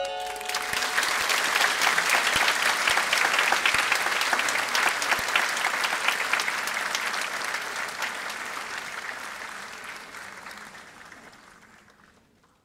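Audience applauding, a dense crowd of hands clapping that swells at first, then fades away steadily over the last few seconds.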